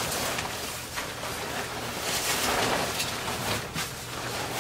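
Rustling of a down comforter's crinkly fabric shell as it is handled and spread over a bed, a continuous swishing that swells around the middle.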